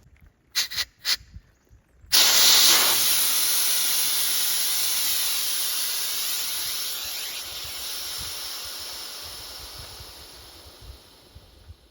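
Pressurised air rushing out through a valve, starting suddenly about two seconds in and fading steadily as the pressure drops: an inflatable paddleboard being deflated. A few short clicks come just before the air starts.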